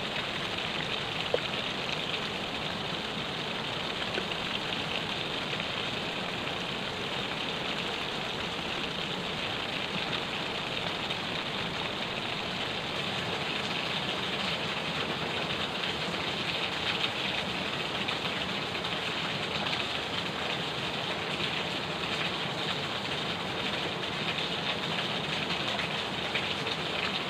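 Steady rush of flowing river water, an even hiss without change, with one short click about a second in.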